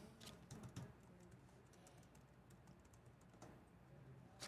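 Faint clicking of keys being typed on a computer keyboard, over near silence.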